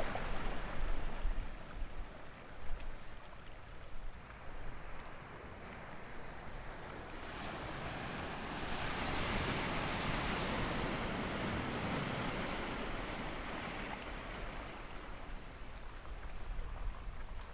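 Sea surf washing in over rounded beach stones: a steady hiss of breaking water that swells about halfway through and eases off again.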